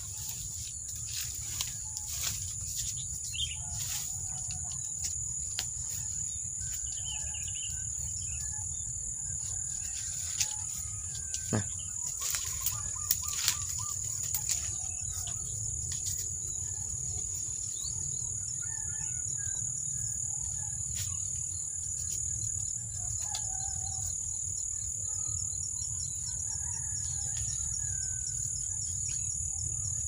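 A steady high insect drone with faint bird chirps, over scattered scrapes and knocks as a man climbs a tree trunk.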